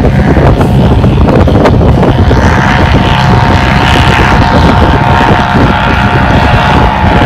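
Off-road vehicle engine running at high revs, with a steady whine that comes in about two seconds in, over heavy wind noise on the microphone.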